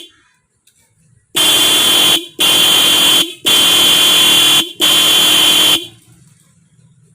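A car horn fitted to a motorbike and wired through a relay, sounding in four loud blasts of about a second each with short gaps between.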